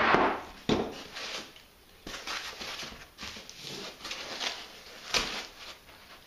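Polyethylene foam packaging inserts being handled and lifted, rubbing and creaking in irregular bursts, after a knock at the start as a metal part is set down on the wooden table.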